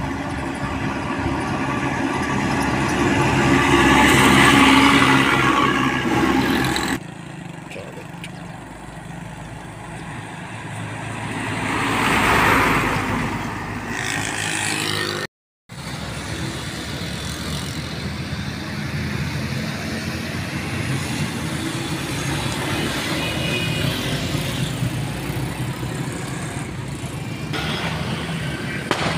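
Decorated diesel trucks passing along a road: one engine and tyre noise swells and fades as a truck goes by, a second truck swells past close by after a cut, then after a brief dropout a steady engine hum with traffic noise.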